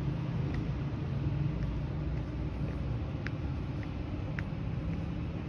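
Steady low outdoor rumble, with two brief high chirps about three and four seconds in.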